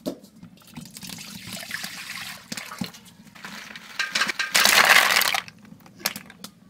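Freshwater snails tipped from a wicker basket into an aluminium pan of water: a burst of shells clattering and splashing about four seconds in, lasting a second and a half. A softer hiss comes before it.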